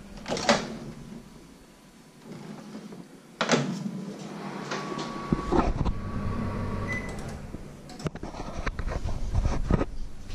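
Knocks and clunks of things being handled at a kitchen worktop by a microwave oven, four in all, with a short high electronic beep about seven seconds in.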